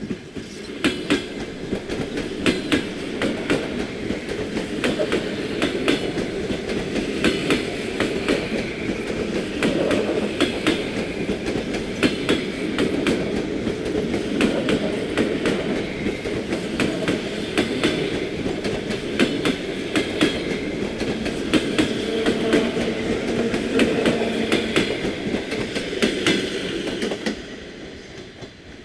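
An ED4M electric multiple-unit train passes close by as it pulls out of the station. Its wheels click rapidly over rail joints and points above a steady rumble, and the sound drops away near the end.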